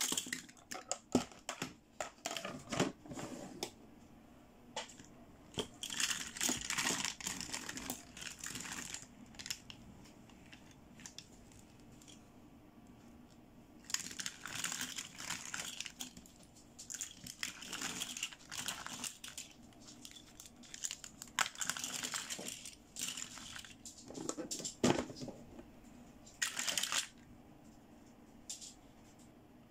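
Small hard plastic toy accessories clicking and clattering against each other as hands pick them up and gather them, mixed with plastic rustling and crinkling. It comes in several bursts with quiet pauses between them.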